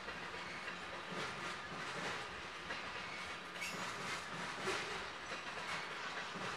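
Freight train of covered hoppers and a tank car: a steady rushing noise broken by soft, irregular knocks about every half second to a second.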